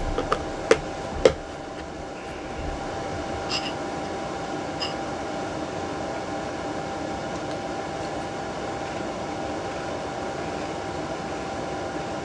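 Spoon knocking and clinking against a ceramic cereal bowl: a few sharp knocks in the first second and a half, then two light ringing clinks a little later. A steady fan-like hum with one constant tone runs underneath.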